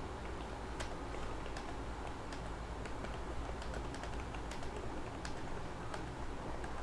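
Computer keyboard typed on steadily by a touch-typist at about 46 words a minute: quick, irregular key clicks, several a second, over a low hum.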